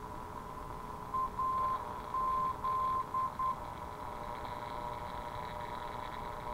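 A non-directional aircraft beacon's Morse identifier 'AZ' (dit-dah, dah-dah-dit-dit) heard as a keyed whistle tone on a WW2 BC-453 beacon receiver, over a steady beat tone and receiver hiss. The identifier starts about a second in and lasts a little over two seconds.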